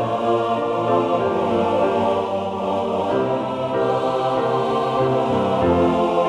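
Background music: a choir singing slow, sustained chords.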